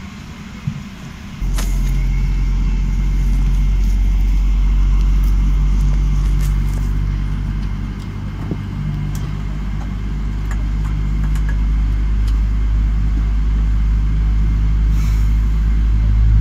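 Airliner cabin noise over the wing: a quieter cabin hum, then, about a second and a half in, a sudden jump to a loud, steady low rumble from the jet engines as the plane taxis.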